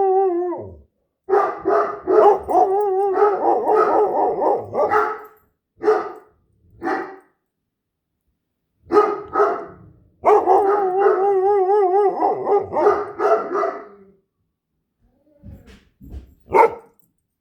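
A Great Dane and a Standard Poodle howling with a wavering pitch, mixed with short barks and yips. The howling comes in two long runs with a pause between them, and a few short yelps come near the end.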